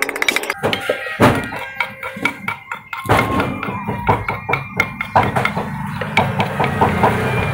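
Wooden pestle pounding garlic and dried chili in a wooden mortar: dull knocks, irregular at first, then settling into a steady beat of about three strokes a second near the end.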